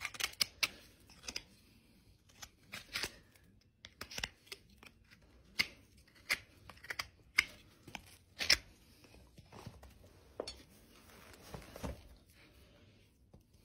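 Hoof knife paring the sole and frog of a horse's hoof: irregular short cutting and scraping strokes, with a few longer scrapes.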